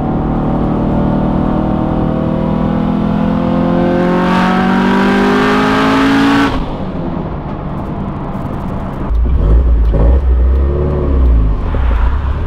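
Subaru STI's turbocharged flat-four, heard from inside the cabin, pulling hard through a gear: the engine note climbs steadily for about six seconds with a rushing hiss building near the top, then cuts off suddenly as the throttle closes. After that the car runs on with a deep low rumble.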